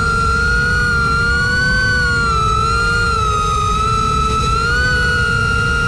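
FPV quadcopter's motors whining: several steady high tones that waver slightly up and down together, over a low rumbling noise.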